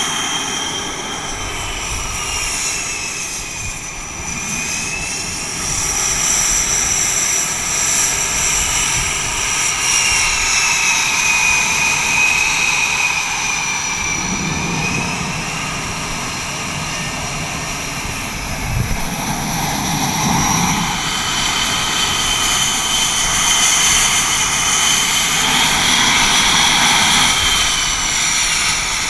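F/A-18 Hornet jet engines running on the deck: a steady loud roar with several high turbine whines that drift slowly up and down in pitch, growing a little louder after the first few seconds.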